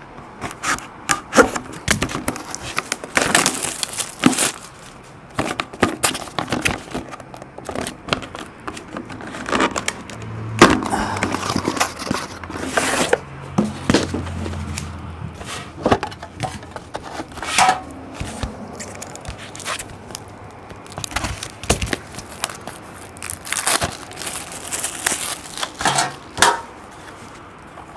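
Plastic shrink wrap being cut and torn off a hockey card box, crinkling, among irregular knocks and scrapes as the cardboard sleeve and the tin inside are handled on a table.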